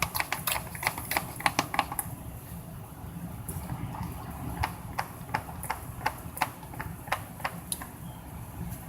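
Spoon clicking and tapping against a bowl as slime is stirred, a quick run of clicks for about two seconds, then scattered clicks.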